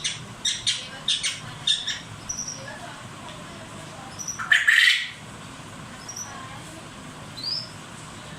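Pet birds, a parrot, a quail and a canary, calling back and forth. A quick run of short harsh calls comes in the first two seconds, a single loud squawk comes about halfway, and brief high thin chirps fall in between.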